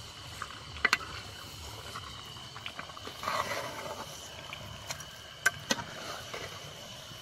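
A metal ladle stirring mutton and onions in a cooking pot, with a few sharp clinks against the pot: a double one about a second in and two close together past the middle. A thin, steady high-pitched whine runs underneath.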